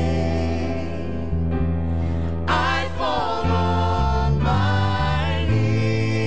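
Worship song: a small group of voices singing together over keyboard, with held low notes underneath that change every second or two.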